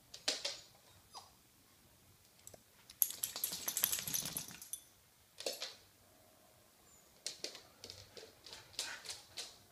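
Dogs' claws clicking and scrabbling on a hard polished floor as two dogs jostle each other, with a dense burst of scuffling about three seconds in and a run of quick ticks near the end.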